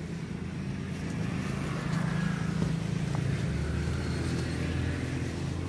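Road traffic: a motor vehicle's engine hum, steady and low, growing a little louder about two seconds in.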